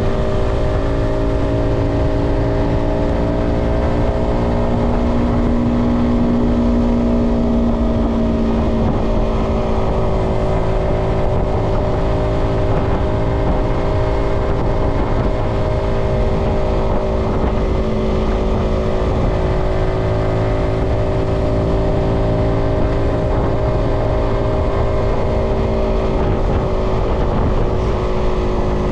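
Yamaha XSR125's single-cylinder 125 cc four-stroke engine running under way at a fairly steady speed, its note holding with only slight rises and dips.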